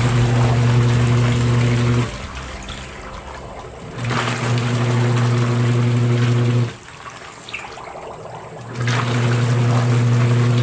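Sharp Giga washing machine's wash motor running in three spells of two to three seconds, each with a steady low hum, separated by pauses of swishing water. This is the newly fitted wash timer switching the agitator motor on and off in its wash cycle as it should.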